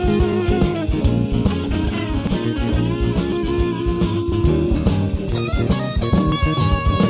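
Background music: a guitar-led tune with bass and drums keeping a steady beat.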